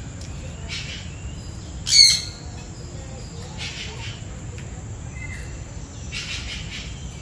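Birds calling in an aviary: one loud, short squawk about two seconds in, with fainter calls a few seconds apart.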